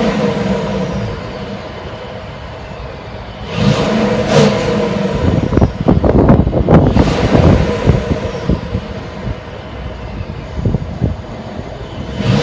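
Exhaust of a 2017 Mercedes-Benz GLS550's 4.7-litre twin-turbo V8, in Sport mode, idling and being revved: a short blip about a third of the way in, then a longer, louder, choppier rev through the middle before it drops back to a steady idle.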